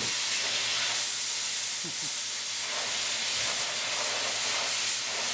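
MIG welder arc giving a steady hiss while a sheet-steel patch is welded into a car's body pillar. The hiss cuts off near the end.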